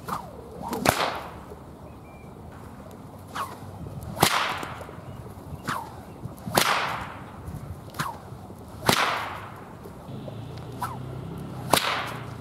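Cossack whip (harapnyk) cracking five times, about two to three seconds apart, each loud crack coming a moment after a fainter snap. The crack is the tip of the lash passing the speed of sound.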